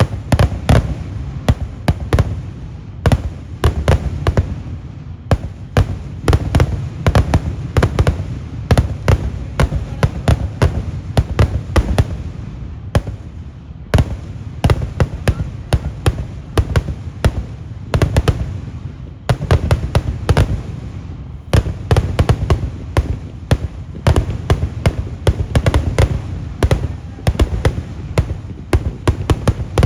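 Kerala temple-festival daytime fireworks (vedikettu): a dense, rapid barrage of loud firework bangs, several a second, over a continuous low rumble, easing off briefly twice before picking up again.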